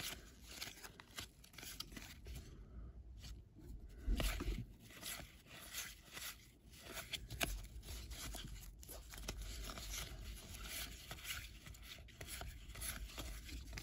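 Cardboard trading cards sliding and rubbing against each other as gloved hands thumb through a stack, a run of faint scrapes and flicks, with one louder brush about four seconds in.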